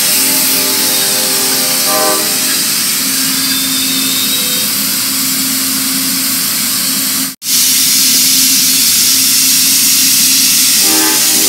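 Amtrak passenger train cars rolling past close by, a steady loud rushing of wheels on rail with a low steady hum under it. A brief chord of tones sounds about two seconds in and again near the end, and the sound drops out for an instant about seven seconds in.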